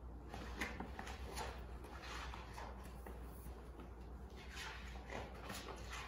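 Faint rustling of a large picture book's paper pages being handled and turned, over a low steady hum.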